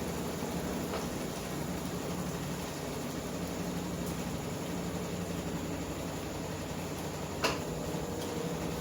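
Consul top-load washing machine running with a steady low hum, with one sharp click about seven and a half seconds in.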